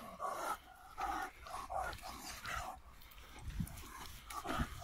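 Dog giving short, high yelping calls several times a second for about three seconds, then two low thuds near the end.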